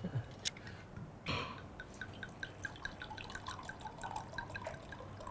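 Red wine poured from a glass bottle into a wine glass, the bottle glugging in a quick, even run of about five glugs a second.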